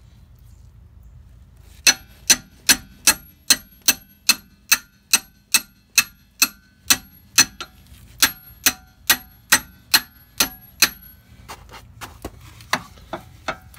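A hammer strikes the end of a steel breaker bar again and again to break loose a tight 17 mm hub bearing bolt. The blows are sharp, metallic and briefly ringing, about two a second; they start about two seconds in, and a few lighter hits follow near the end.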